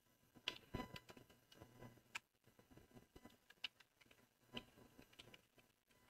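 Computer keyboard being typed on: faint, irregular key clicks, about fifteen scattered over a few seconds.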